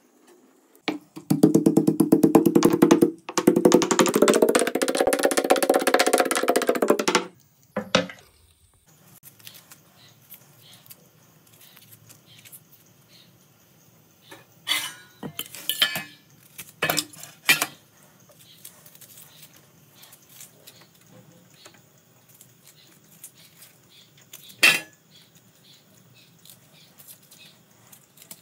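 A loud pitched hum with a rapid rattle lasts about six seconds and rises in pitch midway. Then come a few sharp clinks of metal cooking utensils, the loudest near the end.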